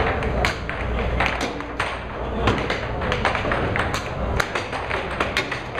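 Air hockey puck clacking rapidly and irregularly off the players' mallets and the table rails in fast play, several sharp clicks a second, over the steady low hum of the table's air blower.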